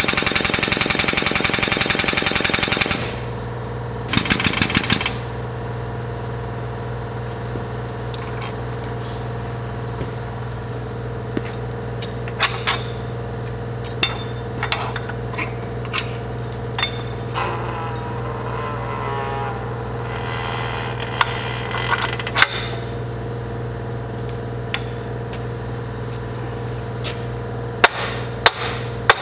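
A loud rapid mechanical rattle for about the first three seconds, with a shorter burst about four seconds in. Then a steady shop hum with scattered metal clinks and knocks from the homemade tube bender. Near the end come a few sharp mallet blows on the bender.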